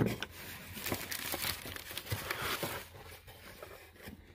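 Plastic packaging crinkling and rustling as new reed cages are taken out of their box, with scattered light clicks; the rustling dies down after about three seconds.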